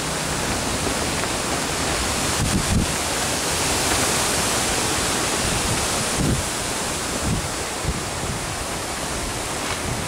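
Strong wind, about 7 m/s, blowing across the camera's built-in microphone: a steady rushing hiss with a few short low rumbles of gusts, about 3, 6 and 7 seconds in.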